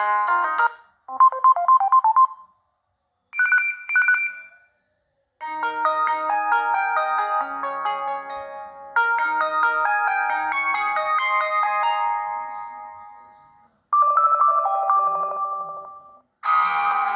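LG Fortune phone playing its preloaded ringtones one after another: the end of one tune, a short run of repeated beeps, two quick chimes, a longer melody of several notes lasting about eight seconds, and another short tune. The tones are separated by brief silences.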